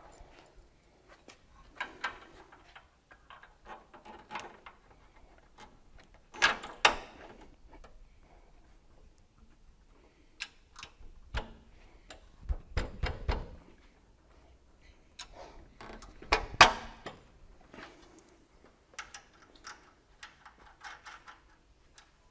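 Hand tools and steel hardware clicking and clinking at irregular intervals as bolts are fitted and tightened on a truck frame's coilover shock mounts, with a few louder metal knocks, the loudest about 7 and 16 seconds in.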